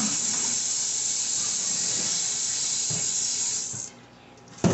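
Kitchen tap running steadily into the sink as turkey wings are rinsed, shut off about four seconds in. A sharp knock follows near the end.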